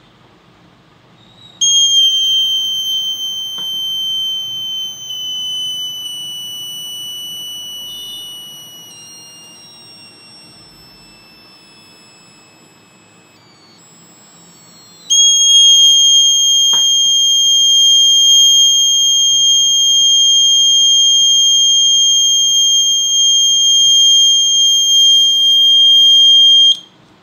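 Piezo buzzer of a rain alarm circuit sounding a high, continuous tone, triggered by water on the rain sensor plate. The tone starts about a second and a half in, slowly sinks in pitch and fades away over some ten seconds, then comes back loud and steady at about fifteen seconds and cuts off suddenly near the end.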